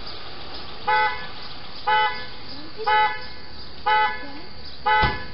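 Car alarm sounding its vehicle's horn in short, evenly spaced honks about once a second, five times, with a single sharp knock near the end.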